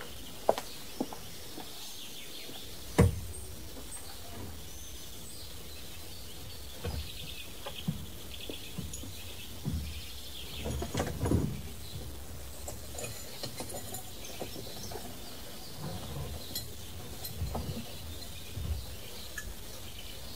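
Birds chirping over a steady outdoor background, with scattered knocks, clunks and rattles as a car boot is opened and things are lifted out of it. The heaviest thump comes about three seconds in.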